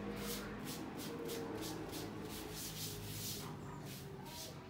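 A cloth rag rubbed back and forth over a surface, about three scrubbing strokes a second, trying to wipe off a mark that does not come off.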